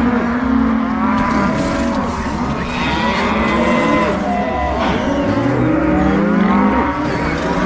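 Many stomach growls layered over one another: a continuous tangle of low, wavering tones that slide up and down in pitch.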